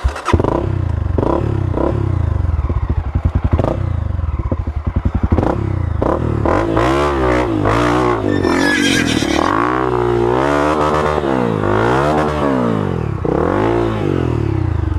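Honda CRF250F's single-cylinder four-stroke engine comes to life with a sudden jump in level right at the start. It then runs under throttle, pulling the dirt bike up a rutted trail climb. In the second half its revs rise and fall over and over, about once a second.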